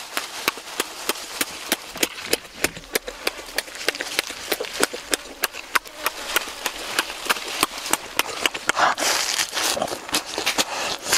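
Wet chewing and lip-smacking of a mouthful of cooked pig intestine, a run of sharp smacks about four a second. About nine seconds in comes a crunchy bite into a fresh lettuce leaf.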